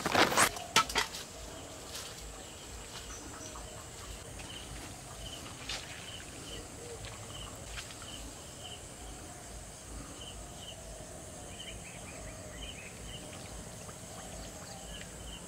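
Quiet outdoor background with short high chirps repeating irregularly, about once or twice a second, over a faint steady high hum. A few sharp knocks and clatters in the first second.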